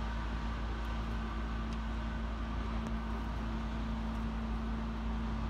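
A steady low mechanical hum with a faint constant tone, like a running machine or fan, unchanging throughout; no distinct tool clicks stand out.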